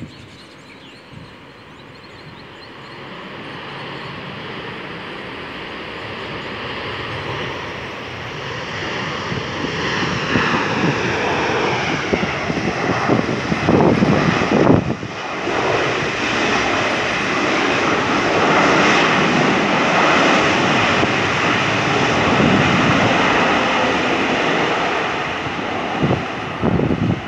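Jet airliner's engines landing and rolling out on the runway: a roar with a faint whine that swells over the first ten seconds or so, then stays loud and steady.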